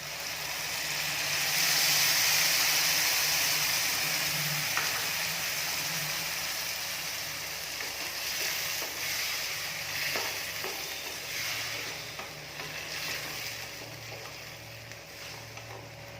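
Tomato paste sizzling in hot oil in a pan. The sizzle swells over the first two seconds and then slowly dies down while it is stirred, with occasional light clicks of the spoon against the pan.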